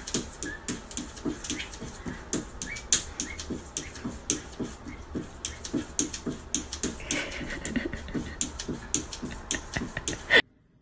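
A cat's paws rapidly slapping and tapping against a mirror, about three or four taps a second, cutting off suddenly near the end.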